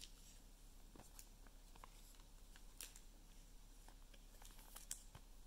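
Near silence, with a few faint scattered clicks of glossy trading cards being handled and slid behind one another in the hand.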